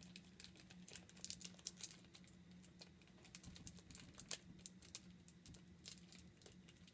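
Faint crinkling and small crackles of a plastic Nerds Rope candy wrapper being picked at and pulled with the fingers, in many short irregular ticks.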